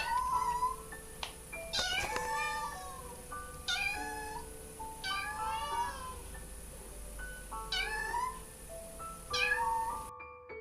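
Kitten mewing repeatedly, about six short high-pitched mews a second or two apart, over light background music.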